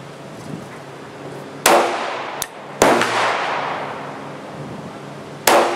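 Three pistol shots from a Glock firing .357 SIG through a conversion barrel: two about a second apart, then a third nearly three seconds later, each with a long echoing tail. A short light click sounds between the first two shots.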